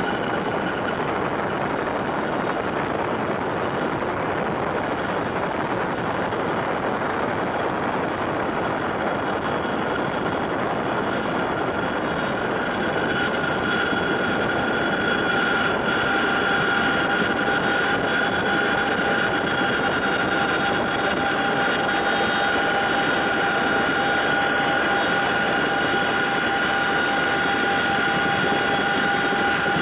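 CH-47J Chinook's twin turboshaft engines and tandem rotors heard from inside the cabin: a loud, steady rush with a whine that strengthens and gets slightly louder about halfway through.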